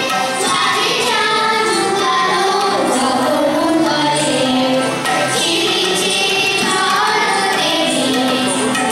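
A choir of children and women singing a Bengali song together, accompanied by harmonium and tabla.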